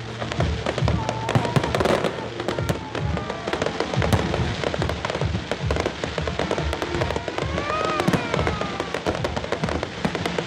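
Fireworks going off in rapid succession, with sharp crackling and low booms, over music.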